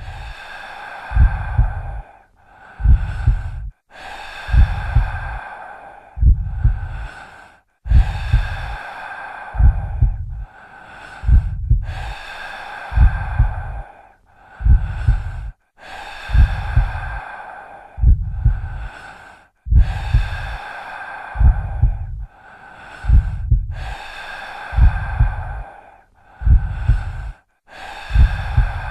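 Heavy, close-miked human breathing in a slow, even rhythm, breaths in and out alternating about every second and a half, with a low rumble under each one.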